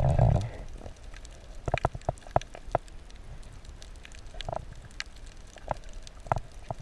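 Water heard through an underwater camera housing just below the surface: a short rush of moving water at the start, then irregular sharp clicks and small hollow pops.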